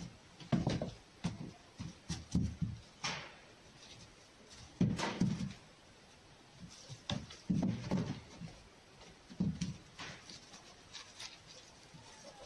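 Irregular thumps and scuffles from a red fox playing with a tennis ball on a straw-covered floor, the ball knocking about and the fox's paws and body scrabbling, in several separate bursts.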